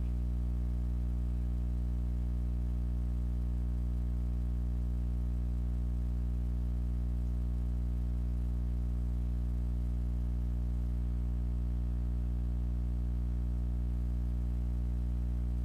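Steady low electrical hum with a stack of even overtones, unchanging throughout.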